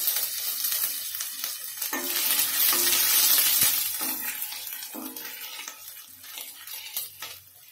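Ginger and whole spices frying in hot oil in a stainless steel kadhai, sizzling, while a wooden spatula stirs and scrapes the pan. The sizzle dies down toward the end.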